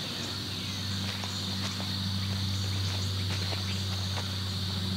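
Insects chirring steadily in woodland, over a low steady hum, with faint scattered crackles through it.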